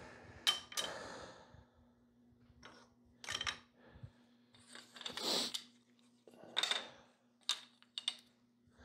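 Hands handling small wood pieces and a miter gauge on a table saw's metal top: irregular sharp knocks and clacks of wood and metal being set down and adjusted, over a faint steady hum.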